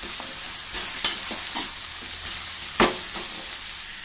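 Sliced radish sizzling as it sautés in oil in a pan, stirred with a spoon. The spoon scrapes and knocks against the pan, sharply about a second in and loudest a little before the end.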